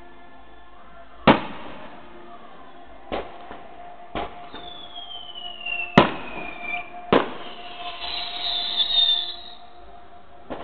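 Aerial firework shells bursting with sharp bangs, about six in the space of ten seconds. In the middle a whistle slides downward in pitch. Near the end comes a spell of high crackling.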